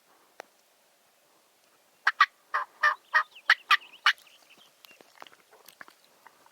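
Turkey calling: a run of about nine loud, clipped notes over two seconds, starting about two seconds in, followed by faint scattered ticks.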